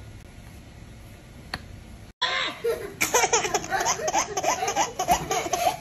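A baby laughing in a quick run of giggles that starts about two seconds in, after a quiet stretch with a single click.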